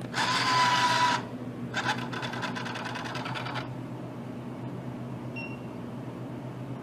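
Vending machine bill acceptor motor whirring as it draws in a folded $5 bill, followed by about two seconds of fast, even clicking as the mechanism runs. A short electronic beep sounds near the end, over the machine's steady low hum.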